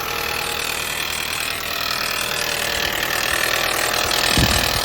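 Audi B5 1.8-litre four-cylinder engine idling with a steady clattering noise that the owner puts down to the cam chain tensioner, which a clogged oil pickup leaves without enough oil pressure. A short low thump near the end.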